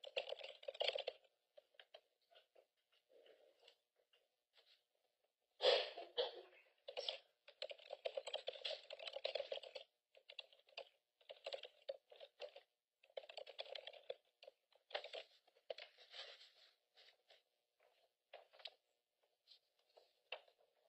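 Faint typing on a computer keyboard, in irregular runs of keystrokes with short pauses between them.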